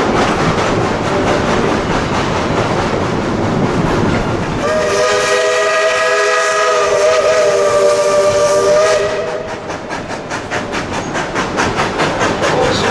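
Narrow-gauge steam locomotive's whistle sounding one long blast of about four seconds, several notes at once, starting a little under five seconds in. Underneath is the rumble and rhythmic clatter of the moving train's cars, heard alone before and after the whistle.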